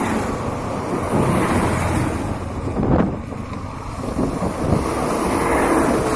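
Wind buffeting the microphone of a camera held on a moving Suzuki scooter, with the scooter's small engine and road noise running underneath.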